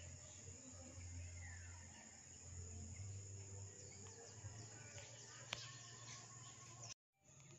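Faint garden ambience: a steady high insect drone over a low hum, with a short high chirp about a second and a half in and a sharp click past the middle. The sound cuts out completely for a moment near the end.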